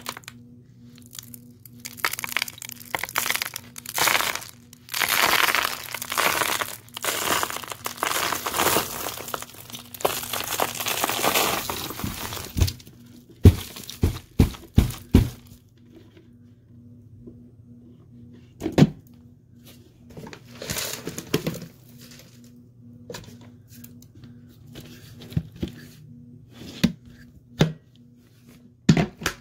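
Hands scrunching and crunching a pile of vacuumed-up dust, lint, confetti and little gems. There is dense crackling for about ten seconds, then a handful of sharp snaps, then scattered crackles. A faint steady hum runs underneath.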